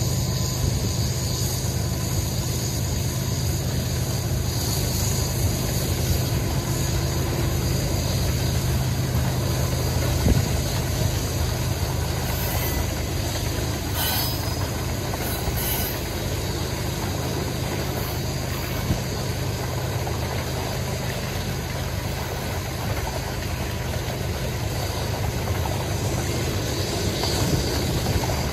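Freight train running by: a steady, unbroken rumble and rattle of the rolling cars on the rails, with one sharp knock about ten seconds in.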